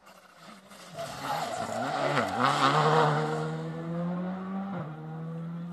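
Rally car engine revving hard as the car brakes into a bend and accelerates out. The pitch dips and then climbs through gear changes, loudest about three seconds in, then eases as the car pulls away.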